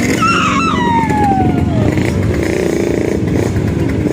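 Motorcycle engines running, with one engine note falling steadily in pitch over about a second and a half as the bike slows or passes.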